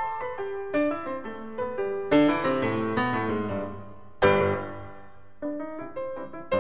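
Piano music: a run of single notes, with full chords struck about two seconds and four seconds in and left to ring out.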